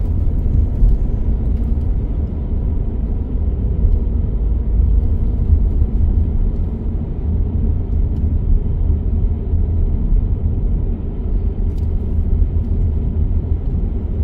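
Car driving, with a steady low rumble of engine and road noise heard from inside the cabin.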